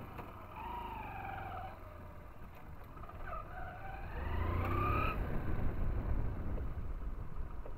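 A 100 cc Hero Splendor motorcycle's single-cylinder four-stroke engine pulling away and riding on, with wind rumble on the helmet-mounted microphone. It gets louder about four seconds in as the bike picks up speed.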